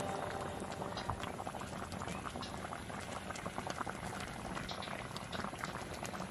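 A pan of sliced saba bananas boiling hard, with steady bubbling and many small pops.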